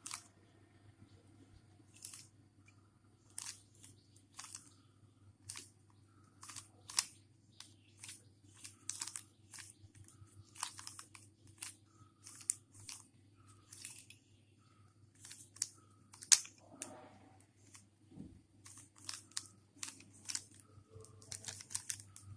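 Rubik's Cube being turned by hand: short, irregular plastic clicks and scrapes as its layers are twisted through a sequence of moves, about one or two turns a second, over a faint steady hum.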